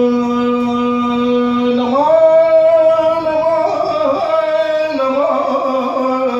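A man singing Iraqi maqam through a microphone with no instruments. He holds one long steady note, steps up higher about two seconds in with ornamented turns, and comes back down to the first note near the end.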